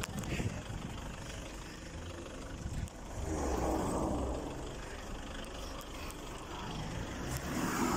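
Street traffic noise: a steady low rumble of vehicle engines and tyres, with a louder swell of a vehicle going by about three seconds in, fading out over the next second or so.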